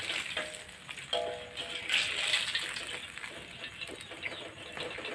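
Oil sizzling and crackling in a wok as pieces of food deep-fry, with light clicks and scrapes of a metal spatula against the pan. The sizzle swells about two seconds in.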